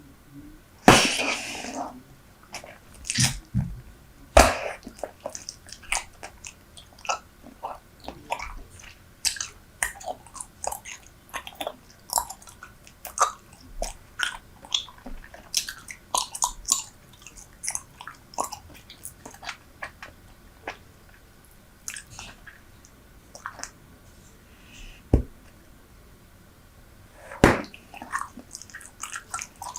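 Close-miked chewing of Super Bubble bubble gum: a steady run of wet, sticky clicks and smacks from the mouth. A few louder sharp snaps stand out, about a second in, around four seconds in, and twice near the end.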